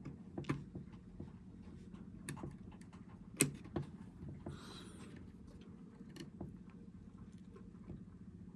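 Scattered small clicks and taps of laptop parts and tools being handled during disassembly, with one louder click about three and a half seconds in and a brief scraping rustle just after, over a low steady hum.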